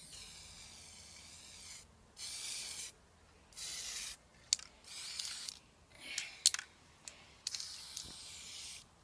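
Aerosol spray can spraying in about six separate hisses of varying length, the first and last about one and a half to two seconds, the others about half a second each, with a few sharp clicks in between.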